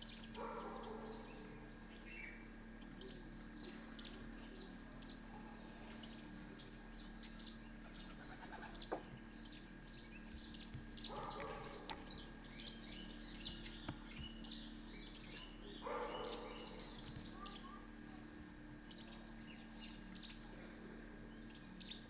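Birds calling in the background: many short, high chirps throughout, and three louder, lower calls about a second long, near the start, about halfway and about three-quarters through. A couple of faint sharp ticks stand out among them.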